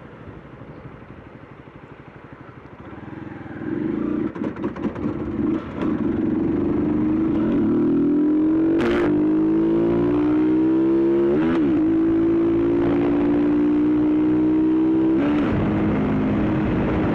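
Motorcycle engine accelerating, its note climbing steadily after a quieter start. There is a short break about eleven seconds in, where a gear changes, then it holds at high revs. Near the end it drops to a lower note.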